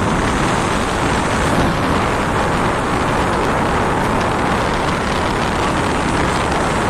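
Hindware 38-litre air cooler running with its fan and water pump on, its air stream blowing straight onto the microphone as a steady, loud rush of wind noise.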